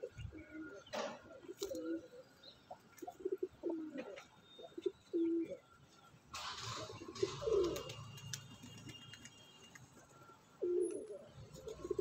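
A flock of domestic pigeons cooing over and over in short low calls, with a brief rush of noise about six seconds in.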